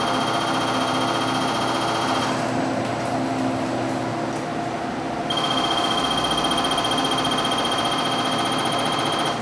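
Cath-lab X-ray (fluoroscopy/cine) system sounding during coronary angiography: a steady electronic buzz with a high whine on top. It stops a couple of seconds in and starts again about three seconds later.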